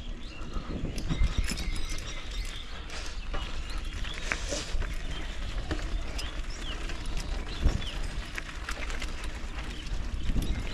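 Touring bicycle rattling and clattering over a rough, unpaved road, with many scattered knocks over a steady low rumble.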